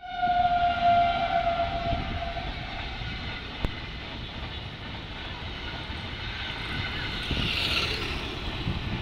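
A passenger train running across a bridge overhead: a steady train horn sounds at the start and fades out over the first two and a half seconds, then the coaches go on rumbling and clattering over the rails.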